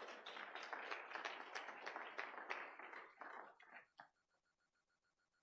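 Congregation clapping hands in praise, a dense patter of many claps that thins to a few single claps and stops about four seconds in.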